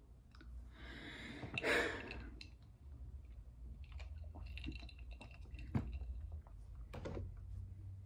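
A person sipping a drink through a straw from a glass mug, with a breath about a second and a half in, then quiet sucking and a few small mouth and glass clicks.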